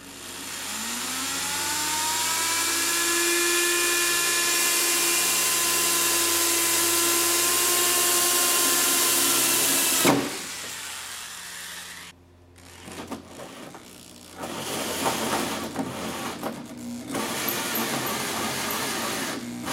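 Corded electric drill driving a hole saw into the sheet-metal fender of a car. The motor spins up with a rising whine and runs steadily for about ten seconds, then cuts off abruptly; after a short pause it runs again in two shorter, grittier stretches of cutting noise.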